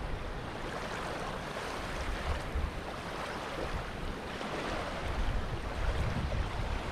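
Steady rush of water, with wind buffeting the microphone in uneven low rumbles.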